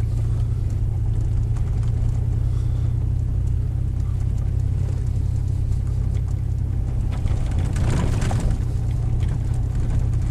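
A vehicle driving along a rough unpaved mountain road: a steady low rumble of engine and tyres, with a brief louder rush of noise about eight seconds in.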